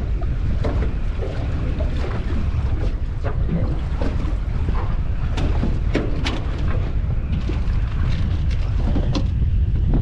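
Wind buffeting the microphone on a small aluminium boat, with scattered sharp knocks and clunks.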